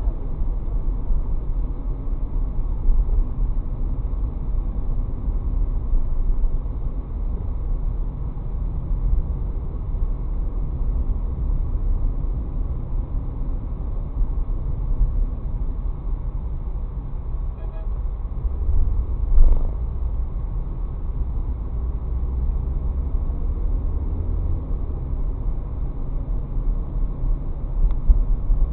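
Steady low rumble of a car driving at low speed on city streets, heard from inside the cabin through a dashcam microphone. There is a brief thump about nineteen seconds in.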